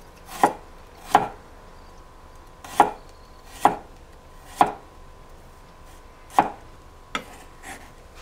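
Santoku knife slicing garlic cloves on a wooden cutting board: a sharp knock of the blade against the board with each slice, about six clear strokes at uneven intervals and two fainter ones near the end.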